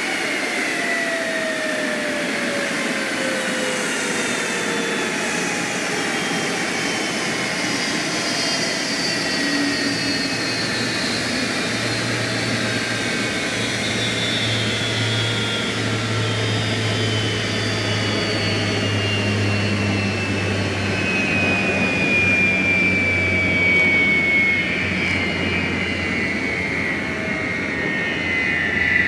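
F-35's Pratt & Whitney F135 jet engine whining on the ground, its pitch falling slowly and steadily as it winds down. A low hum joins in for a while in the middle.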